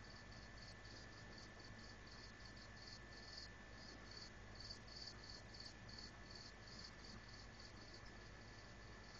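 Faint cricket chirping in a steady rhythm, about three chirps a second, over a thin constant high tone.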